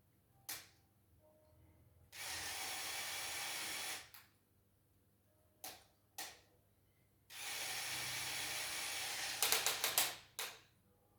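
Lego Technic 42082 crane's gear mechanism running in two steady spells of about two seconds each, with single clicks between them and a quick run of clicks at the end of the second spell.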